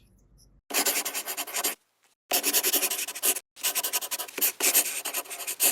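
Pen scribbling on paper in quick scratchy strokes, writing in a toy medical record. It starts a moment in and comes in three stretches with short pauses between.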